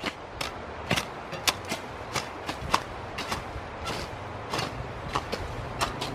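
A run of short, sharp clicks and knocks at irregular spacing, about two or three a second, over a steady low hiss.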